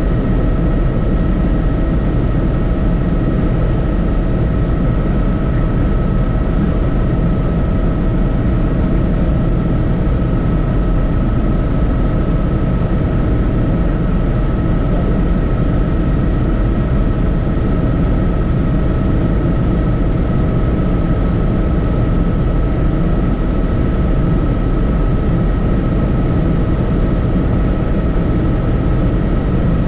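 Helicopter in flight: loud, steady engine and rotor noise with a constant whine running through it.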